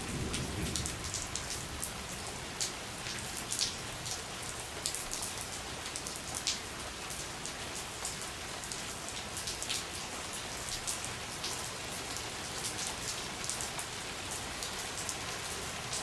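Steady rain with scattered crackling drops. A low thunder rumble dies away in the first second.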